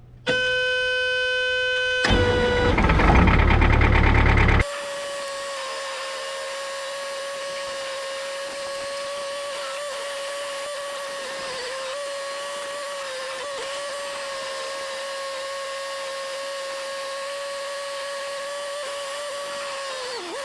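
Start-up of a Furukawa FD40P bulldozer: a warning buzzer sounds for about two seconds, then the diesel is cranked loudly for about two and a half seconds. It stops abruptly, and a steady high-pitched whine continues to the end.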